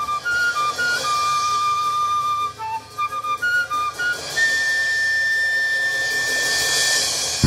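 Solo transverse flute playing a slow, free melody of short notes, then holding one long high note for about three seconds, with a faint high shimmer underneath.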